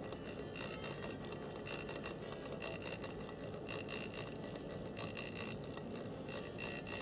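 HO-scale Bowser Challenger model locomotive's electric motor and worm-gear drive running, a steady whir with a ratcheting gear chatter that comes back about once a second.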